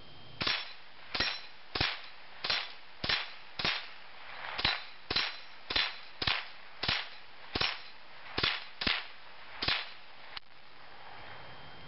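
Remington Nylon 66 .22 semi-automatic rifle firing a steady string of about fifteen shots, roughly one every two-thirds of a second, stopping about ten seconds in.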